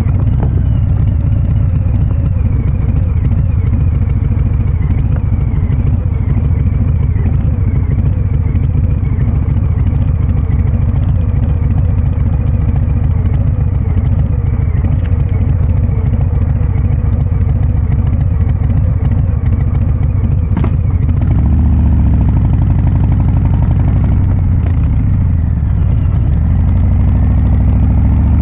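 Harley-Davidson Breakout 114's 1868 cc Milwaukee-Eight V-twin running through a Kesstech valved exhaust with a deep, heavy rumble. The engine note rises and falls with the throttle, and the revs climb near the end.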